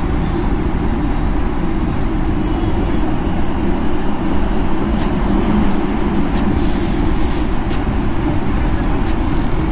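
Steady road-traffic noise under a flyover: engines of trucks, cars, auto-rickshaws and scooters running as a continuous low rumble, with a brief hiss about two-thirds of the way through.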